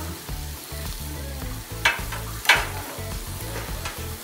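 Food sizzling on a Blackstone gas flat-top griddle while metal spatulas scrape and turn pineapple chunks on the steel plate, with two sharp spatula scrapes about two and two and a half seconds in.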